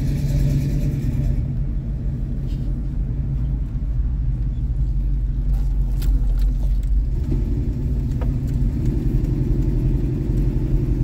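1986 Chevrolet K10's 350 V8 with headers, heard from inside the cab while driving slowly: a steady low exhaust rumble that rises a little in pitch about seven seconds in.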